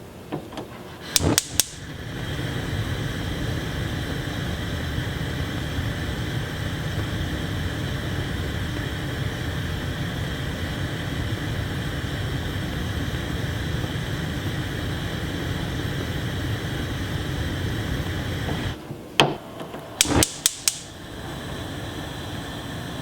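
Gas stove burner: a few sharp igniter clicks about a second in, then the flame catches and burns with a steady rushing hiss, strongest in the low range. Near the end the flame cuts out, the igniter clicks several more times and the burner relights a little quieter.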